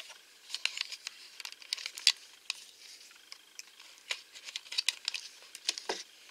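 A craft knife scraping along the paper seal of a small plastic toy box, with handling of the box: a scattered run of light, sharp clicks and scratches.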